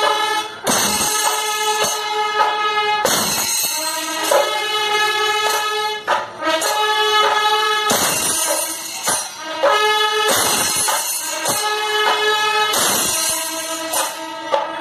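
Kerala temple percussion ensemble (melam): chenda drums beaten with sticks and clashing ilathalam cymbals, with kombu horns blowing long held notes that break off and start again every couple of seconds.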